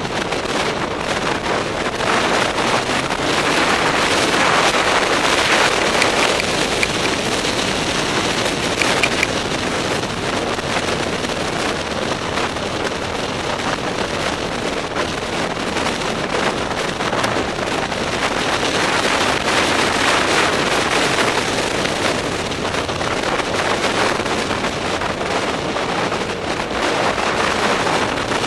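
Heavy wind buffeting on a helmet-mounted camera's microphone while riding a motorcycle at speed: a dense rushing noise that swells and eases over several seconds at a time.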